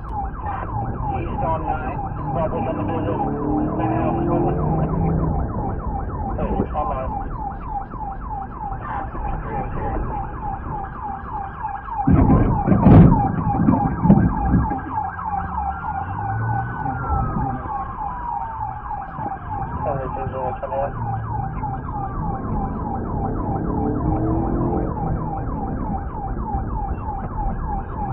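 Police siren sounding in a fast, repeating yelp, with slower rising-and-falling wail sweeps in the middle stretch, over vehicle engine and road noise. A loud rumbling burst with a sharp knock comes about twelve seconds in.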